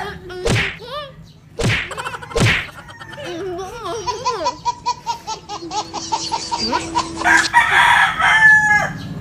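Domestic fowl calling loudly several times, with crowing-like calls.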